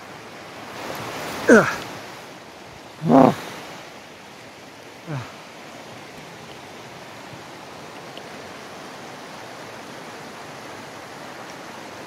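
Steady rushing of a nearby stream and waterfall. Three short grunts from a man come in the first half, each falling in pitch, the middle one loudest.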